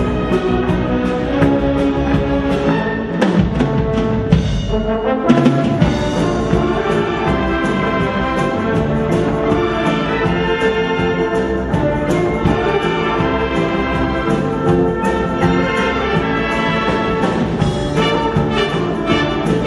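Orchestral music with prominent brass.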